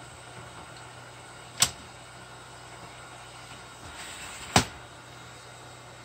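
Two sharp mechanical clicks about three seconds apart from a cassette tape deck's transport mechanism, over a steady low hum.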